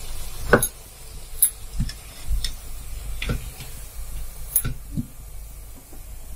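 Irregular sharp clicks and taps of a perforated metal slotted spoon against a kadhai as a fried bhatura is turned and lifted out of the oil.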